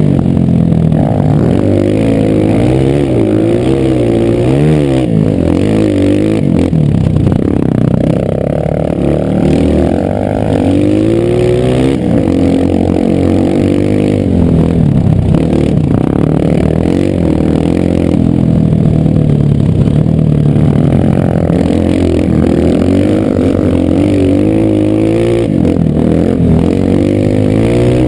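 Single-cylinder four-stroke dirt bike engine of a Honda CRF230 under way off-road, its pitch rising and falling over and over as the throttle is opened and eased and the gears change.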